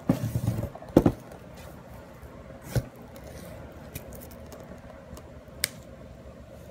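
A shrink-wrapped cardboard box being handled and turned over: a short burst of rustling and bumps, a sharp knock about a second in, another knock near three seconds, and a small click later.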